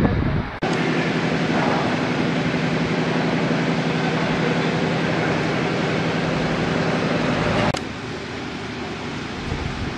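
Outdoor street noise with the steady low hum of an idling motor vehicle engine. It starts abruptly just after the start and cuts off sharply near the end, leaving a quieter, even street hum.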